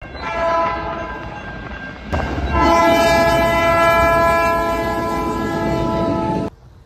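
Train horn blasts at a level crossing, in two spliced clips: a first blast, then a cut about two seconds in to a longer, louder blast that stops abruptly near the end.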